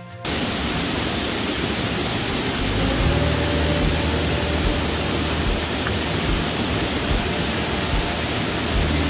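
Steady loud rush of fast-flowing water, such as a mountain creek cascade, close to the microphone, starting abruptly just after the beginning.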